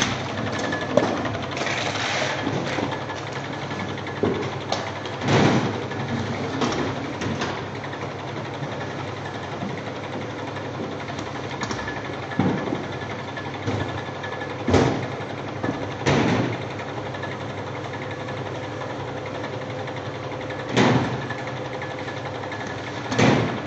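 Automatic round-bottle labeling machine running: a steady hum from its motors and slat conveyor, with a faint steady tone, broken every few seconds by short loud knocks.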